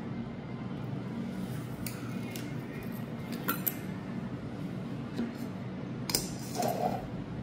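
A few scattered light clicks and clinks, the sharpest a little past the six-second mark, from a wristwatch with a metal link bracelet and a clear plastic cover being handled and set down on a work mat. A steady low hum runs underneath.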